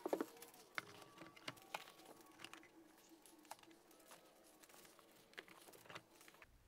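Faint, scattered light taps and rustles of a fabric-covered acoustic panel being handled and hung on a wooden French cleat on the wall.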